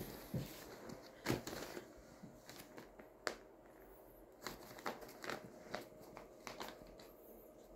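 Newspaper crinkling and rustling under a small dog's paws as it climbs and shifts its weight on a pile of papers: a series of short, irregular crackles, the sharpest about a second in and again about three seconds in.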